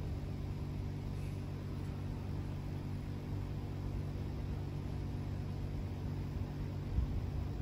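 A steady low mechanical hum made of several held tones, with a few low bumps near the end.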